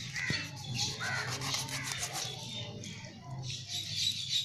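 A knife scraping and cutting as it scores slashes into a whole fish on a metal plate, with birds calling in the background.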